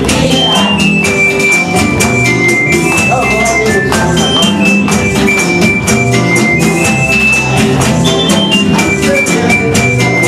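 Lively dance music with a steady beat: a high melody line stepping between notes over drums and percussion.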